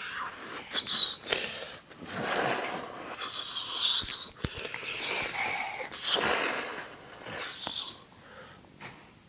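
A person's breathy, wheezing hisses in several bursts of about a second each, with quieter gaps between them.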